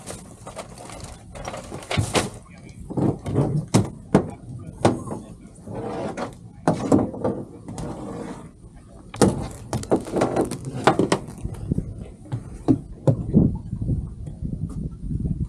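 Irregular knocks and thumps of a pump hose being gathered up and of footsteps on a boat deck and wooden dock.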